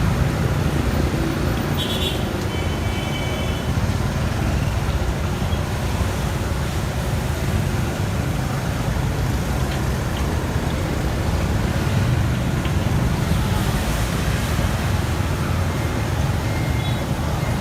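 Steady road traffic noise, with a short beeping tone about two seconds in.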